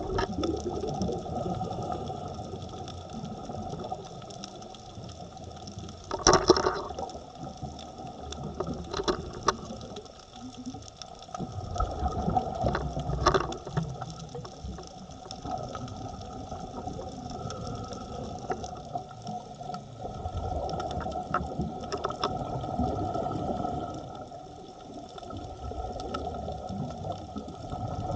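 Underwater sound on a scuba dive: the rush and gurgle of regulator exhaust bubbles swelling every several seconds over a faint steady hum. There is one sharp, loud burst about six seconds in.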